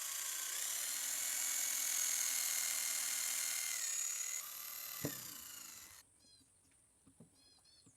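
High-pitched whine of a small high-speed power tool working wood, its pitch dipping a few times under load, with a knock about five seconds in. It cuts off about six seconds in, leaving faint bird chirps.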